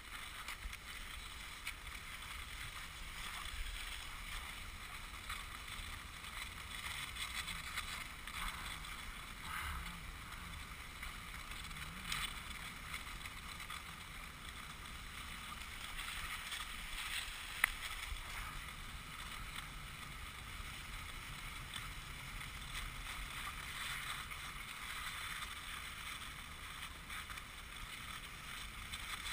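Cross-country skis hissing and scraping steadily over groomed snow while being towed along, with a low wind rumble underneath and one sharp click partway through.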